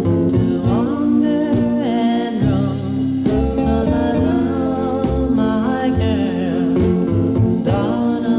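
A pop song with a singing voice over guitar and band accompaniment.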